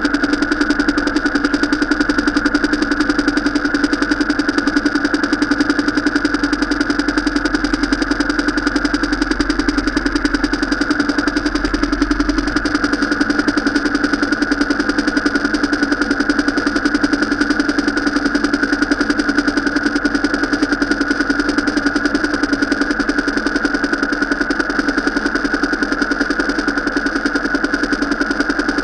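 Vehicle engine running at a steady, unchanging pitch: a constant drone.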